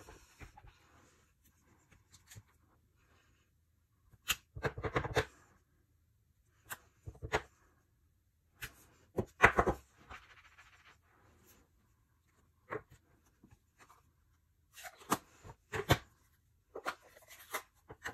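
Stamping by hand with clear acrylic-mounted stamps and ink pads: irregular clicks and taps of hard plastic blocks and ink pad cases set down on the work surface. Short scuffing rustles come between them as stamps are inked and pressed onto cardstock.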